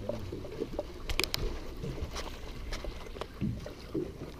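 Low rumble of a boat at sea, with water and wind moving against the hull, broken by a few sharp clicks about a second in and a couple more later.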